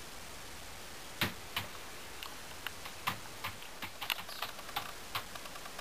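Typing on a computer keyboard: an irregular string of key clicks, with two louder taps a little over a second in and a scatter of lighter keystrokes after.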